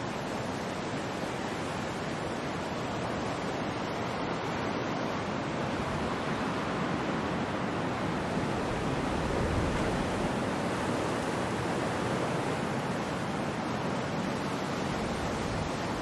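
Ocean waves breaking and washing on the shore, a steady rush of surf that swells a little toward the middle.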